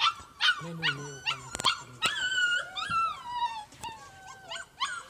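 Siberian husky puppies yipping and whining. Short high yips come first, then about two seconds in, longer drawn-out whines that slide down in pitch.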